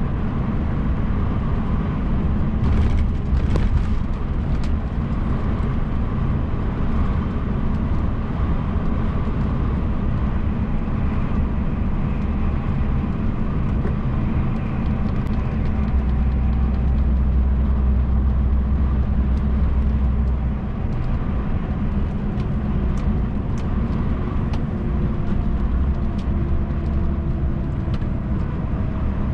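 MAN TGX truck's engine and road noise heard from inside the cab while cruising: a steady low drone that swells for a few seconds past the middle, with scattered light clicks.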